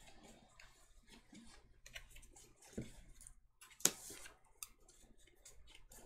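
Sleeved Magic: The Gathering cards being handled and set down: scattered faint clicks and taps, the sharpest about four seconds in.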